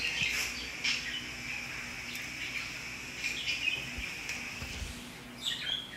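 Bird chirps in the background over a faint steady hum.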